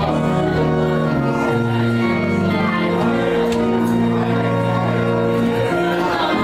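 Instrumental music of sustained, held chords, the notes shifting to a new chord every second or two.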